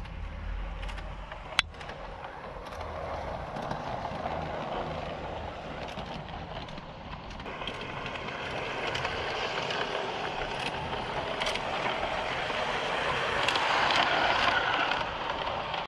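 G-scale LGB model train running on an outdoor track, its wheels and electric motor growing louder as it comes closer, with a few short clicks.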